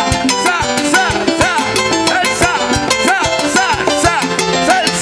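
Live salsa orchestra playing an instrumental passage, with a steady beat of hand and stick percussion under repeated melodic phrases.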